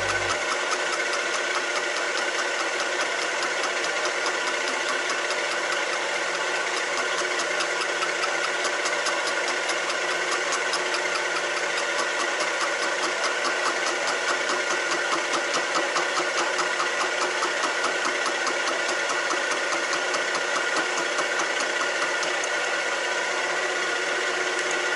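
Milling machine running a face mill across an intake manifold flange: a steady machine whine with a fast, even chatter of the cutter biting the metal.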